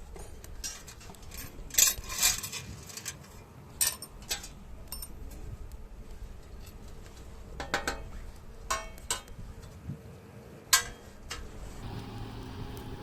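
Hard metal pieces clinking and knocking as they are handled, a dozen or so scattered knocks with the loudest about 2 s, 4 s and 11 s in, over a low steady rumble.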